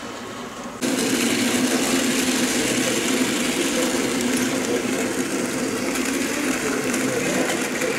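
Heljan model Class 14 diesel locomotive running along the track with a short freight train, giving a steady engine-like hum. The sound starts abruptly about a second in.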